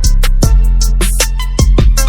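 Background music: a hip-hop style beat with drums and a heavy bass line.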